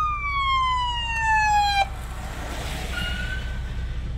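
Emergency vehicle siren wailing, its pitch falling slowly, then cutting off sharply about two seconds in. A short, fainter siren tone sounds near the end, over a steady low rumble.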